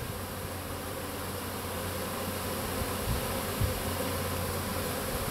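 Honeybee swarm humming steadily as the bees cluster on and move into a nuc box.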